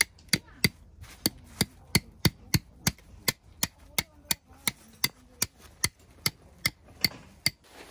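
Hammer driving a tent peg: about twenty sharp, evenly spaced strikes, roughly three a second.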